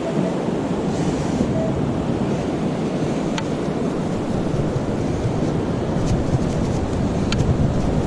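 Ocean surf and wind rushing steadily on the microphone, with two short sharp clicks, about three and a half and seven and a half seconds in.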